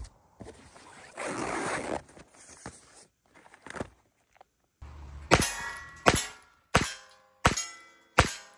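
Five .22 rifle shots about 0.7 s apart, each followed by the clang of a hit steel target ringing out. Before them comes soft rustling as boxes of ammunition are handled.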